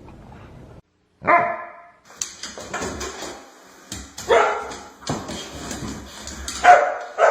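A dog panting softly, then, after a brief break, a dog barking several times in short, loud barks.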